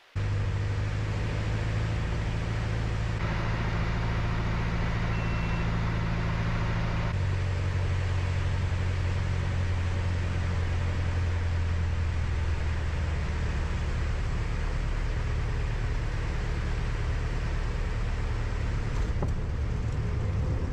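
Single piston engine and propeller of a Piper Cherokee droning steadily as heard inside the cabin, at reduced power while landing. The engine note drops slightly in pitch about seven seconds in.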